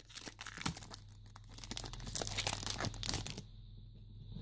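Select Footy Stars trading-card pack wrapper being torn open and crinkled by hand: a dense run of crackling that stops about three and a half seconds in.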